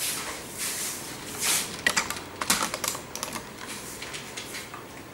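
A few soft swishes, then a quick, irregular run of small clicks and taps for about a second and a half: a person moving about and handling small objects.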